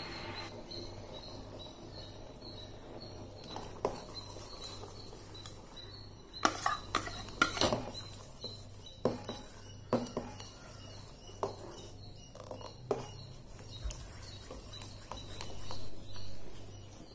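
Steel ladle clinking and scraping against a steel saucepan while a thick pudding mixture is stirred, in irregular knocks that come thickest about six to eight seconds in. A faint low hum runs underneath.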